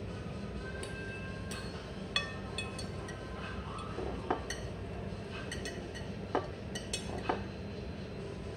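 Metal knife and fork clinking and scraping against a ceramic dinner plate, with several sharp clinks that ring briefly, over a steady background hum.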